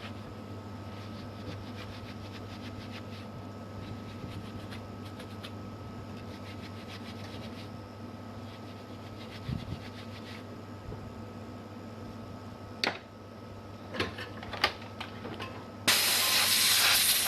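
A steady low hum with a few small clicks and knocks of handling, then, near the end, a loud hiss of air blown at the graphics card's circuit board to clear dust from it, lasting about two and a half seconds.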